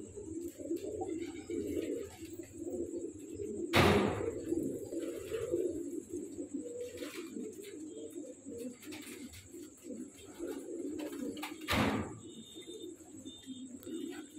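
Pigeons cooing continuously in a low rolling coo, from a cock puffed up and turning in courtship display. Two loud sharp thumps, about 4 s and 12 s in.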